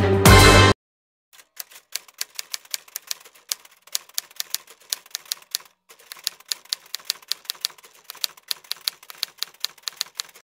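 Music cuts off abruptly under a second in. A quick, even run of typewriter-style key clicks follows, about five a second, pausing briefly near the middle: a typing sound effect for on-screen text.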